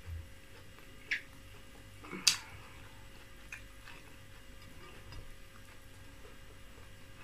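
Close-up eating sounds: a few sharp, scattered clicks of lip smacking and chewing, the loudest a little over two seconds in.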